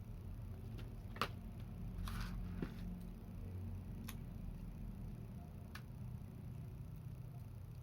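Light handling noises from work on a laptop: a few sharp, isolated clicks and a brief scraping rustle, over a low steady hum.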